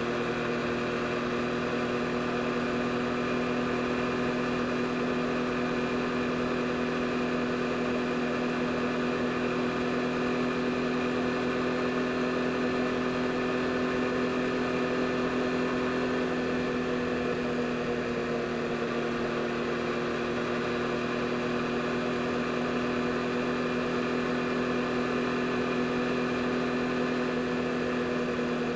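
A 2022 Yamaha MT-09 SP's 890 cc inline three-cylinder engine running at a steady engine speed, its pitch holding nearly constant.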